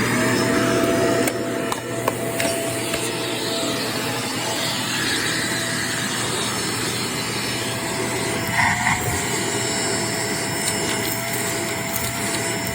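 Vacuum cleaner running steadily with a high motor whine over a wide rushing noise, used for vacuuming stairs. A few light clicks come through, and about two-thirds through the whine briefly dips and wavers.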